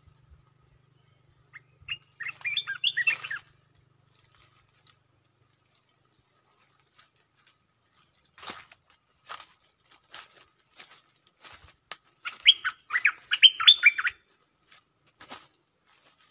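Stripe-throated bulbul singing: two short phrases of quick warbled notes, about two seconds in and again near the end, with scattered short sharp chips between them.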